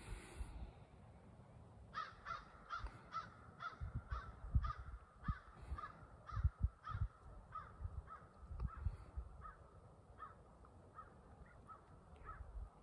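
A crow cawing in a long run of short, evenly spaced caws, about three a second. The caws start about two seconds in and grow fainter toward the end.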